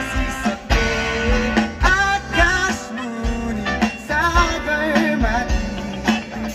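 A live rock band playing amplified through a stage sound system: electric guitars over bass and drum beats, with a wavering sung lead line on top.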